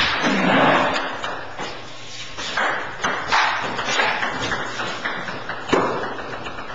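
Ping-pong balls knocking off paddles and the table in a rally, a sharp click about every half second to second.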